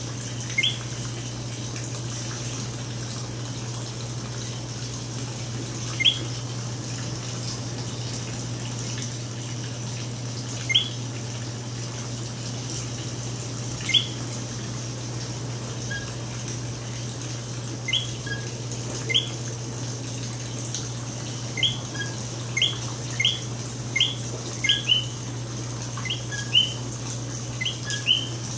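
Common coquí frogs calling their two-note "co-QUI": a short low note, then a rising whistle. Calls come a few seconds apart at first and more than once a second near the end, over a steady low hum and a faint high chorus hiss.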